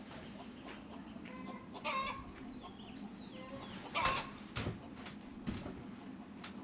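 Chickens clucking, with one louder squawk about two seconds in. A few sharp knocks come between about four and five and a half seconds in, the first the loudest.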